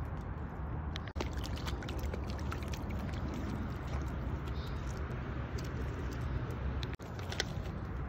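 Wind buffeting a phone microphone: a steady low rumble, with faint light crunches of footsteps on a wet pebbly lake shore. The sound cuts out for an instant about a second in and again near the end.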